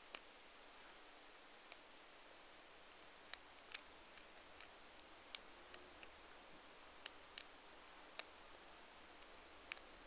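Faint, irregular clicks of a lock pick lifting the pin tumblers of a 5-pin Union padlock, about a dozen sharp ticks scattered through a near-silent background, the loudest a third and halfway through.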